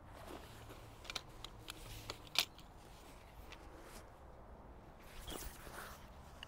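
Faint rustling and small clicks as a shock-corded aluminium tent-style pole and the cot's fabric sleeve are handled, with one sharper click about two and a half seconds in.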